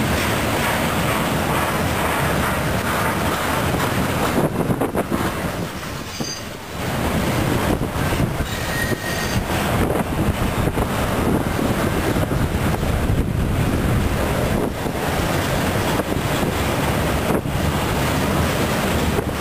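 Freight train cars rolling past close by: a steady rumble and rattle of steel wheels on the rails, with a faint, brief wheel squeal near the middle.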